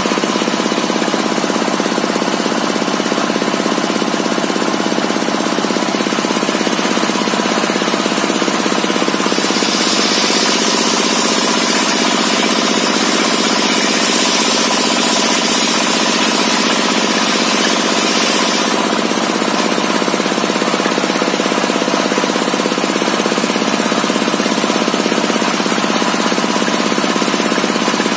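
Large homemade circular sawmill blade spinning steadily on its shaft-driven rig, a loud machine drone with steady tones. From about a third of the way in until about two thirds of the way through, a louder high-pitched hiss rises over it as the blade cuts through a log, then drops back to the plain running sound.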